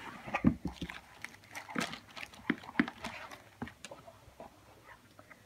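Sheets of scrapbooking paper and a flat cardboard box being handled: a run of short taps, knocks and paper rustles, several of them sharp.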